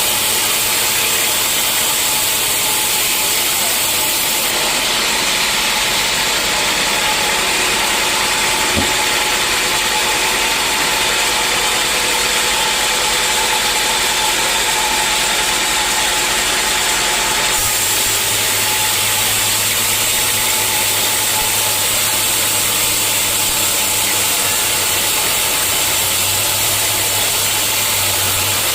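Sawmill saw running steadily, a loud even mechanical din with a constant hum through it, its tone shifting slightly about four seconds in and again about seventeen seconds in.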